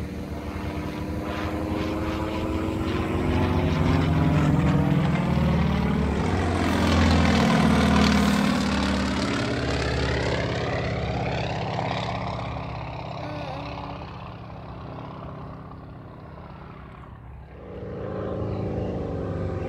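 Single-engine propeller aerobatic plane flying past low: its engine grows louder to a peak about eight seconds in, drops in pitch as it passes, then fades away.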